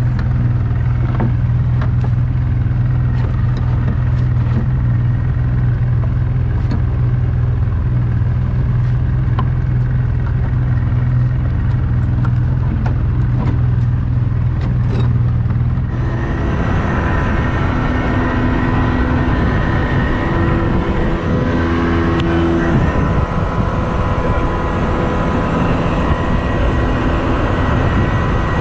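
Tiller-steered outboard motor running steadily as the skiff moves across the water, a steady engine hum. About halfway through the sound changes abruptly to a rougher, noisier run with more rush of water and wind.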